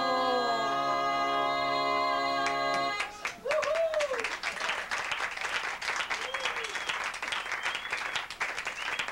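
A live song ends on a long held chord with the singer's last note, which cuts off about three seconds in. A bar audience then applauds, with a few shouts over the clapping.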